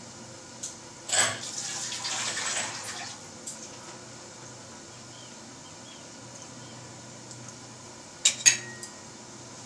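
A metal clank, then about two seconds of water running or being poured into a vessel. Two sharp clinks of metal kitchen utensils come near the end.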